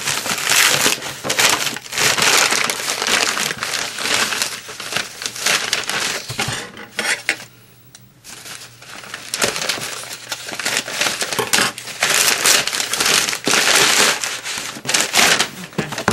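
Packaging being opened by hand: paper or plastic wrapping crinkling and rustling, with a short pause about halfway through.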